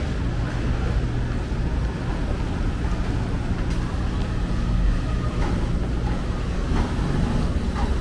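Steady low rumble of a large vehicle, with a few faint clicks in the second half.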